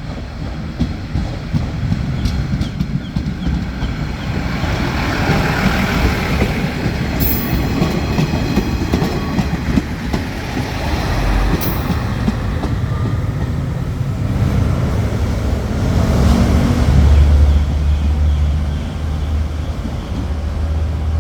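KiHa 48 diesel railcar train running on the line: a steady rumble of engine and wheels on the track, with a deeper engine drone swelling louder about three-quarters of the way through.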